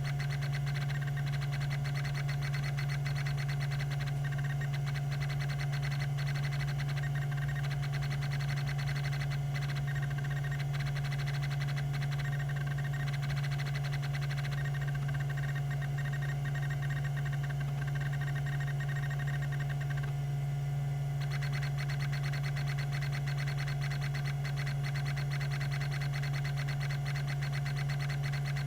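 Tandon TM362 hard drive running: a steady hum and thin whine from the spinning disks, over a fast, even ticking from its rack-and-pinion stepper actuator seeking. The ticking stops briefly about twenty seconds in, then resumes.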